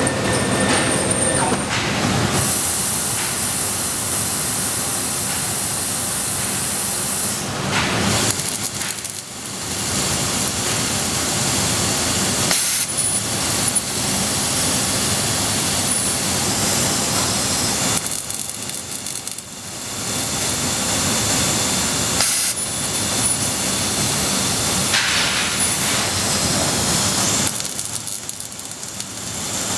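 Trumpf L3030 CO2 laser cutter cutting sheet metal: a steady, loud hiss of the cutting jet at the head. It drops off briefly three times, about 9, 19 and 28 seconds in.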